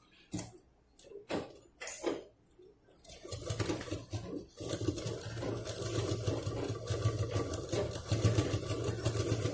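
A few separate clicks, then about three seconds in a sewing machine starts stitching and runs steadily, with a fast, even stitch rhythm over a low motor hum.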